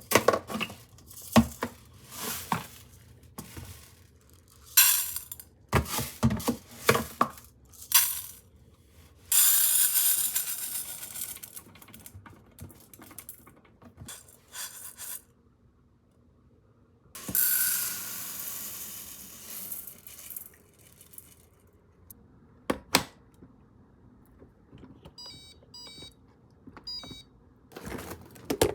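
Kitchen handling sounds: a string of knocks and clatter from objects being set down and moved, two stretches of noise lasting a few seconds each, and a short run of electronic beeps near the end.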